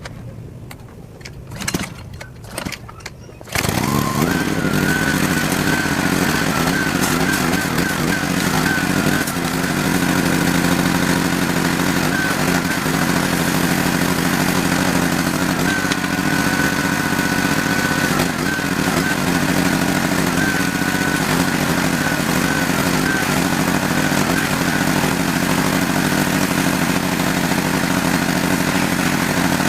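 Pressure washer starting suddenly about three and a half seconds in, then running steadily with a motor drone and a higher whine that wavers now and then. Before it, a few quiet clicks and knocks.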